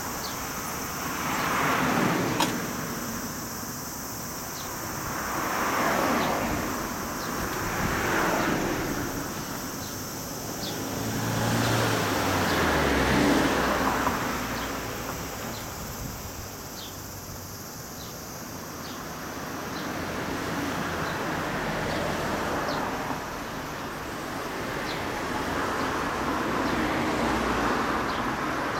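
Road traffic: vehicles passing by one after another, each one swelling up and fading away over a few seconds, one with a low engine note that drops in pitch as it goes by.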